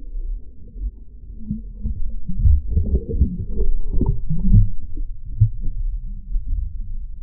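Water sloshing and dull, irregular thumps heard muffled through a camera held underwater, as a hand lowers a threadfin salmon back into the river to release it. The knocks come thickest in the middle.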